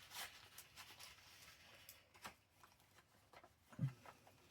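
Faint rustling and light taps of paper as a concertina-folded journal card is handled and pushed into a paper side-tuck pocket, with a brief low sound near the end.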